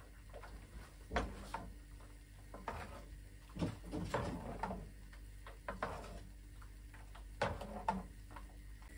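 A spoon stirring pancake batter in an enamel bowl, with irregular clinks and scrapes against the bowl's side, several close together around the middle.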